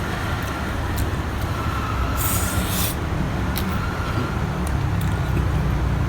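Steady low background rumble, with a few light clicks and a brief hiss about two seconds in.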